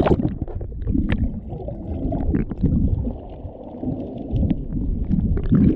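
Muffled underwater gurgling and sloshing picked up by an action camera held below the surface, water and bubbles rushing over its housing, with occasional sharp clicks.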